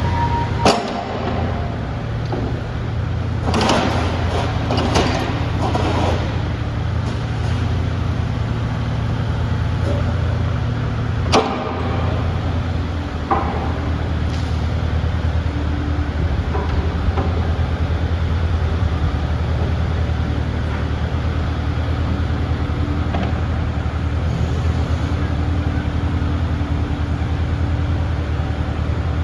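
Kubota KX042-4 midi-excavator's diesel engine running steadily, with a few sharp metallic knocks: one about a second in, a cluster around four to six seconds, and two more near eleven and thirteen seconds.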